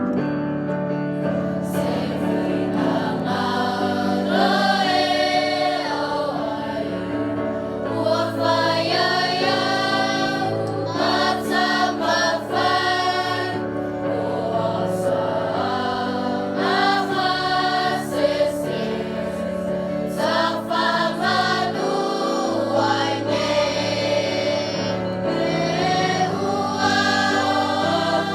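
A hymn sung by a choir of voices, with steady keyboard chords underneath.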